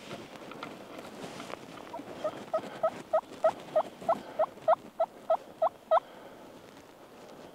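A run of about a dozen turkey yelps, evenly spaced at roughly three a second. They start about two seconds in and stop about six seconds in.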